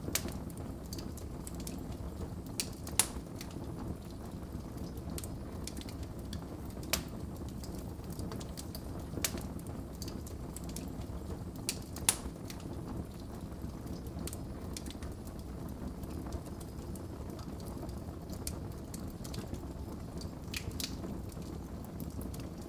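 Wood fire crackling in a fireplace: a steady low rumble of flame with irregular sharp pops and snaps. The loudest pops come about three seconds in and again about twelve seconds in.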